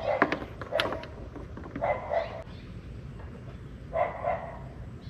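A dog barking in two short double barks, about two seconds apart, with a few light clicks of handling just before.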